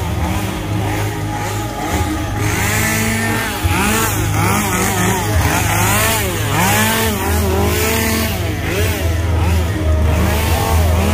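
An engine revving up and down over and over, over a steady low drone.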